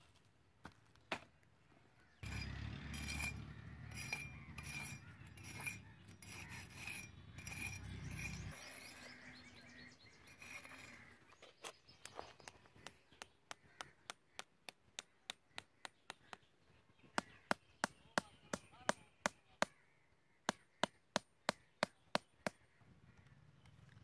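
Rubbing and scraping for about six seconds, followed by a long run of sharp, evenly spaced taps about twice a second, much louder in the second half: hand work with wooden sticks on bare ground.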